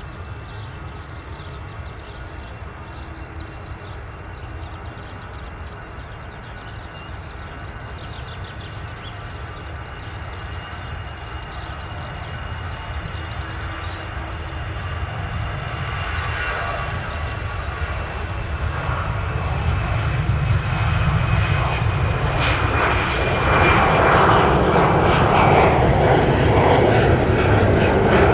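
Jet airliner on a low landing approach, its engine noise growing steadily louder as it draws near, with a high fan whine that slides slowly down in pitch.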